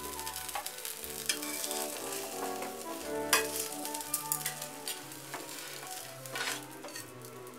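Atta uttapam sizzling in oil in a hot nonstick pan, with a few short scrapes and taps of a steel spatula against the pan as it is slid under and lifted out.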